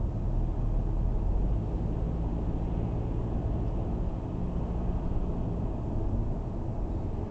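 Steady cabin noise of a car cruising on a motorway, heard from inside the car: a low rumble of tyres and wind with a faint engine hum.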